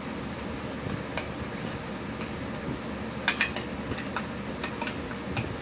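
Plastic toy stacking cups clicking and tapping against each other as they are handled and nested: a quick cluster of sharp clicks about three seconds in, then a few single clicks, over a steady hiss.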